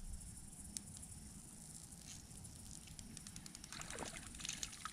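Insects buzzing steadily and high-pitched, with a low wind rumble on the microphone. A single click comes about a second in, and a run of faint, rapid ticking follows through the second half.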